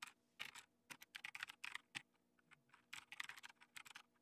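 Faint typing on a computer keyboard: quick runs of keystrokes with short pauses between them, as a terminal command is entered.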